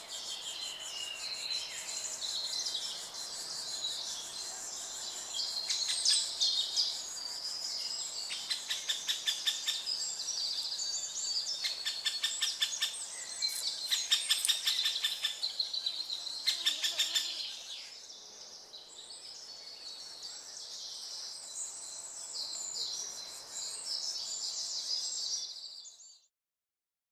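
Woodland birdsong, with several songbirds singing over one another in high, quick phrases. Four times in the middle stretch comes a fast, even rattle of ticks lasting about a second, before everything fades out near the end.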